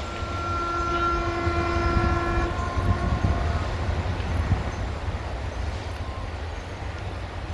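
Two coupled DH2/SN83 diesel multiple units approaching: one long, steady horn blast of about two and a half seconds, then the low rumble of the engines and wheels on the track, growing louder as the train comes closer.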